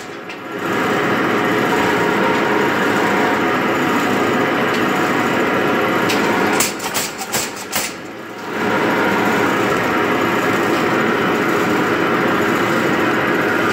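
Mechanical power hammer running and pounding a hot steel bar as it is drawn out: a fast, continuous clatter of blows. About seven seconds in it briefly changes to slower, separate blows, about five a second, then returns to the fast clatter.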